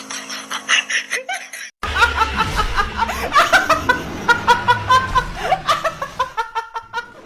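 People laughing in quick repeated bursts, with a sudden cut about two seconds in to more laughter.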